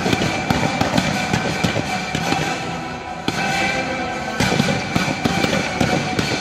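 Fireworks going off in quick succession, many sharp bangs and crackling, with loud music playing at the same time as part of a pyromusical display.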